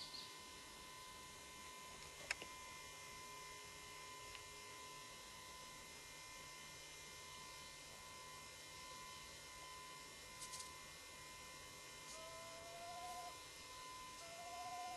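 Faint steady hiss and a thin constant hum from an old camcorder tape recording, with a single click about two seconds in. Near the end comes a buzzing whine that rises in pitch, twice.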